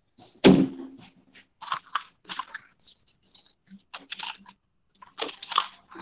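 Scattered thumps, clicks and short rustling bursts picked up by an open microphone on a video call, with silence between them. The loudest is a thump about half a second in.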